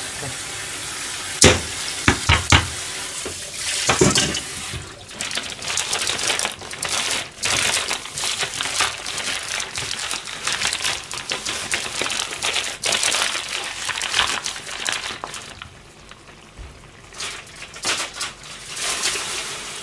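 Newspaper rustling and crinkling as kitchen scraps are wrapped up in it, with a few knocks in the first seconds.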